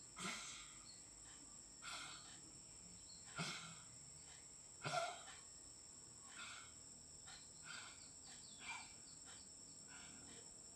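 An animal gives short, cough-like barks, one about every second and a half. The first four are stronger and the later ones fainter, over a steady chirring of insects.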